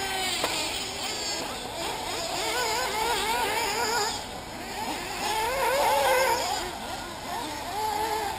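Several 1/8-scale nitro RC buggy engines revving up and down together, their whining pitch rising and falling quickly as the cars race around the track.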